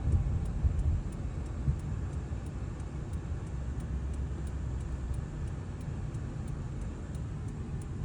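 Car driving, with a steady low rumble of road and engine noise heard from inside, and a faint regular ticking about two or three times a second.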